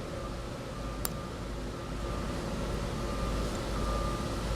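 Steady background hum and hiss with faint steady tones, and one sharp click about a second in while a 3/8" ratchet head is being pried apart.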